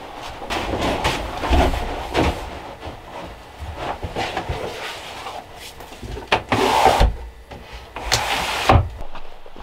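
Footsteps and knocks on wood, then two scraping slides, each ending in a thump, as a small wood-framed cellar window is worked by hand.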